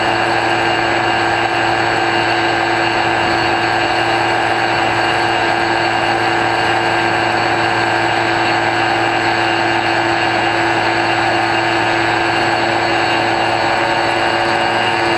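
X-UAV Talon's 3648 brushless motor spinning a 9x6 pusher propeller at steady throttle in flight: a constant whine made of several steady tones that do not change in pitch or loudness, heard through the plane's onboard camera.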